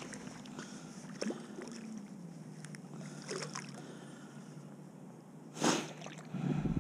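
Faint lapping of lake water around a wading angler, with scattered small ticks. About five and a half seconds in there is one short, loud swish, and a low rumble comes up near the end.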